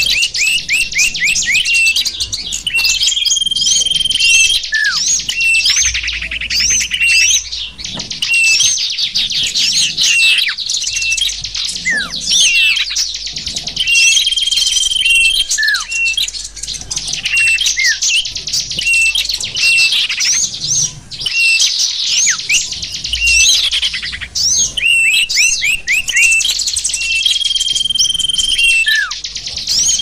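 Many small songbirds chirping and trilling together: a dense 'sapu jagat' bird-lure mix meant to draw in wild small birds. Quick rapid trills and short sweeping notes run on without a break, and a held whistle comes back every twelve seconds or so.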